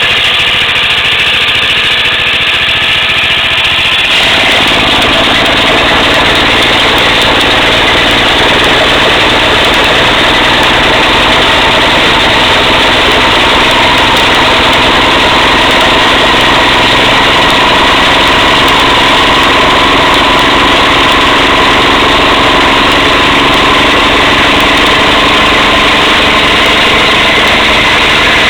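DR stump grinder's gasoline engine running loudly; about four seconds in its sound steps up and grows fuller, then it runs steadily.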